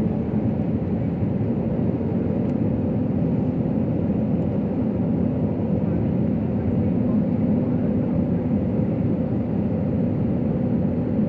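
Jet airliner cabin noise on the landing approach: the turbofan engines and the airflow make a steady low drone with a steady hum in it.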